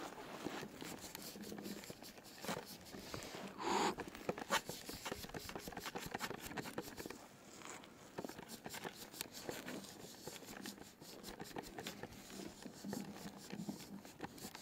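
Fingers rubbing and scraping at an iced-over camera lens, close to the microphone: an irregular run of small clicks and scratchy rubbing, with a louder scrape and a sharp click about four seconds in.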